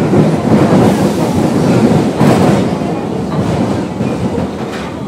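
Osaka Metro 23 series subway train running underground: a loud, steady rumble of wheels on rails with clickety-clack over the rail joints, easing off a little in the second half.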